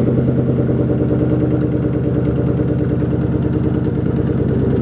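Ford Mustang GT's V8 engine idling steadily, shortly after being started.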